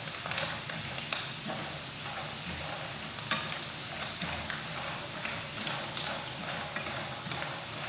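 Macaroni frying in hot oil in a pan, a steady sizzle, with irregular taps and scrapes of a wooden utensil stirring it against the pan.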